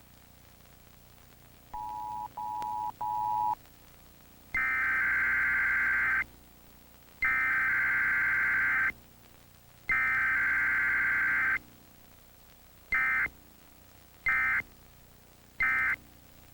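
Emergency Alert System weekly test data signal. Three short, lower two-note beeps come first, then three long, harsh, buzzy bursts of SAME header data about a second and a half each. Three short bursts near the end carry the end-of-message code.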